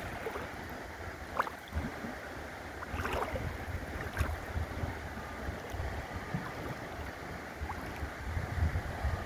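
Steady rush of river water with wind buffeting the microphone in uneven low gusts, and a few short sharp sounds about one and a half, three and four seconds in.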